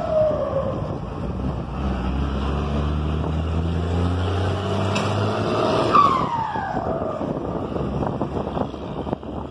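Mercedes-Benz 1113 truck's diesel engine running steadily on the move, with a falling whistle-like tone at the start and a louder one about six seconds in.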